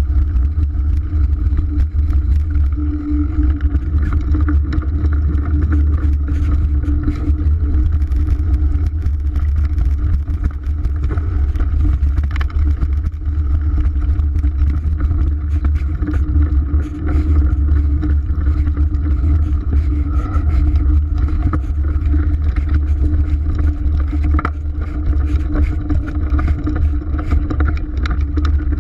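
Mountain bike rolling fast down a dry dirt trail: heavy wind rumble on the camera mixed with the steady hum of knobby tyres on hard-packed dirt. Frequent small clicks and knocks come from the bike rattling over bumps and stones.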